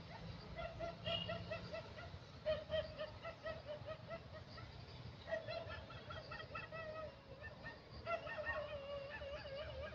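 Infant macaque whimpering: strings of short, squeaky, wavering calls, several a second, in four bouts, the last drawn out into a longer wavering cry near the end.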